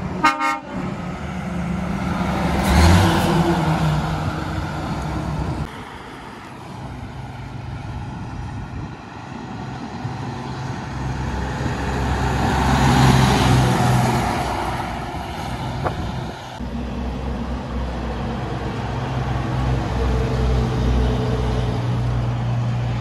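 A truck's air horn toots briefly right at the start. Heavy diesel trucks then drive past one at a time, each swelling and fading as it goes by, and near the end a truck engine runs steadily at low speed.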